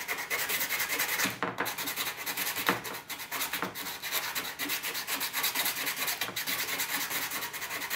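Hand sanding a painted plastic car body part with a folded piece of sandpaper: rapid back-and-forth scraping strokes, taking the paint off down to the plastic to prepare it for plastic welding. The strokes stop near the end.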